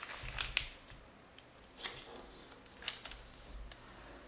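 A square sheet of origami paper being handled and folded by hand, rustling and creasing in a few short crisp crackles, about half a second in, near two seconds and near three seconds.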